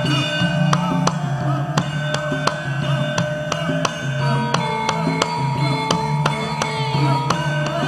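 Javanese gamelan ensemble playing: bronze metallophones and gongs holding ringing notes over a busy pattern of kendang hand-drum strokes.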